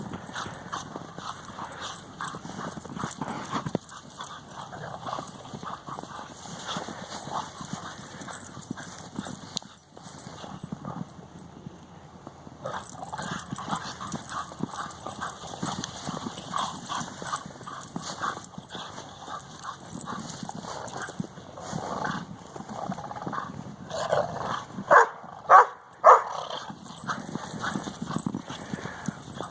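Dogs playing in snow: a continuous rapid crunching and scuffling, with three loud barks in quick succession about 25 seconds in.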